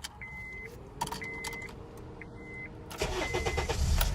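Car dashboard chime beeping about once a second, then the 2010 Honda Accord's 2.4-litre four-cylinder engine cranking and catching about three seconds in and running, the first start after a spark plug and ignition coil replacement.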